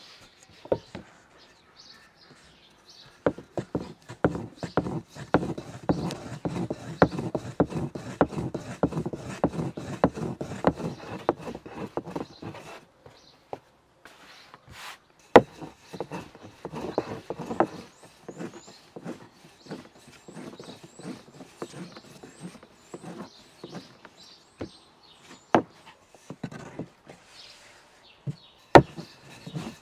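Dough being handled on a wooden board: a busy run of quick soft knocks and rubbing, another short run a little later, then scattered taps with a few sharper knocks.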